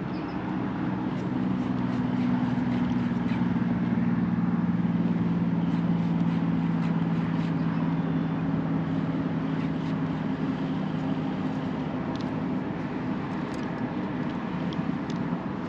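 An engine running steadily at a distance, a low hum holding a few steady tones over a broad hiss. It swells slightly a couple of seconds in and eases off in the second half.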